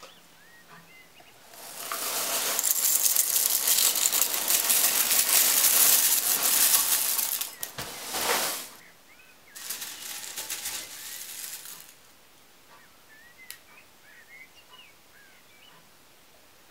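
Corn flakes poured into a ceramic bowl: a dry, crackling rattle lasting about six seconds, followed a little later by a second, shorter burst of rattling. A single sharp click comes near the end.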